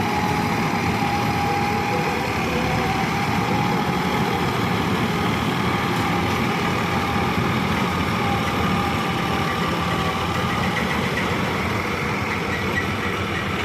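Tractor engine running steadily, powering a tractor-mounted combine harvester as it harvests paddy, with a faint wavering whine from the machinery.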